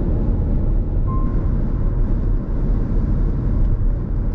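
Steady road noise of a car driving at highway speed, heard from inside the cabin: a low, even rumble of tyres and engine.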